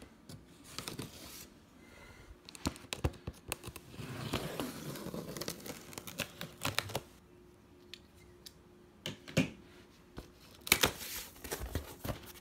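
A knife cutting through packing tape on a cardboard box and the box being pulled open: a longer stretch of tearing and scraping in the middle, with scattered sharp clicks and knocks of the cardboard flaps.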